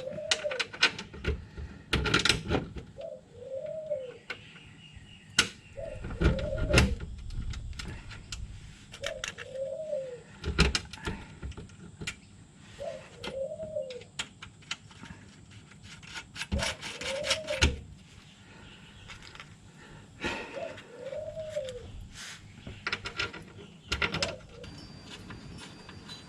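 A pigeon cooing over and over, one short arched note every three or four seconds, with scattered sharp metallic knocks and clanks from tools and parts being handled on the car.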